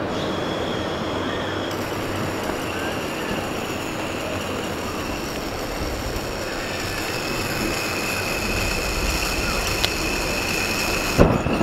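Portable gas-canister backpacking stove burning under a pan: a steady hissing roar with a thin high tone through it. A sharp knock near the end.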